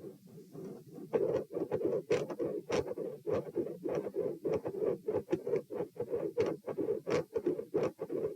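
Heartbeat heard through a stethoscope at the pulmonic area, regular lub-dub beats with a very loud second heart sound and a mid-systolic murmur. The beats are fainter for about the first second, then louder and steady.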